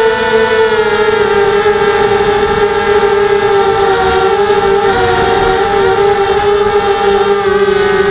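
Coptergeist CGX 250 quadcopter's SunnySky brushless motors and propellers whining in flight: a loud, steady multi-toned whine whose pitch wavers slightly up and down with throttle.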